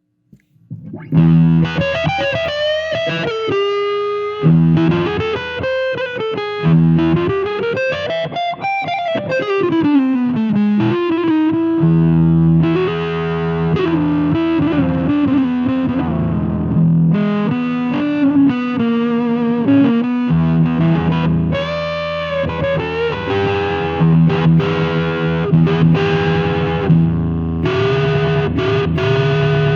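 Electric guitar played through a Cardian Effector Vitamin C fuzz pedal: distorted, sustained notes and phrases with sliding pitch bends, starting about a second in.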